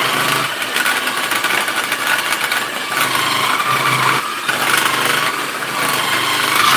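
Mini food processor running continuously, shredding carrots: a motor whine that wavers slightly in pitch over the noise of the carrots being cut.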